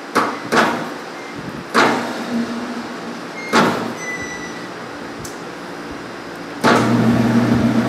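A few sharp clunks over the first four seconds, then, near the end, the metal lathe starts up and runs with a steady hum as the four-jaw chuck holding the bronze eccentric spins.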